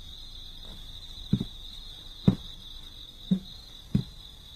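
Steady high-pitched cricket chirring as night ambience, with four dull footsteps on wooden floorboards, roughly a second apart.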